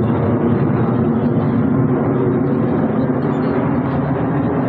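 Jet aircraft of an aerobatic formation flying overhead, heard as a loud, steady rumble.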